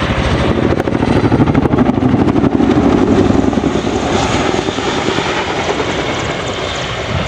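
Boeing CH-47 Chinook tandem-rotor helicopter passing close overhead, its twin rotors giving a loud, fast chopping beat. The sound is loudest two to three seconds in, then fades as it moves away.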